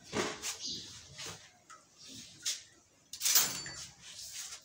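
Kitchen handling sounds: a few short scrapes and clatters of utensils and containers while spices go into a bowl of mashed potato, the loudest about three and a half seconds in.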